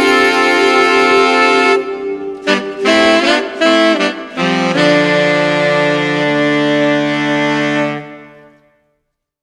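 Background music led by saxophone and brass: held notes, a few short punchy hits in the middle, and a final sustained chord that fades out about eight seconds in.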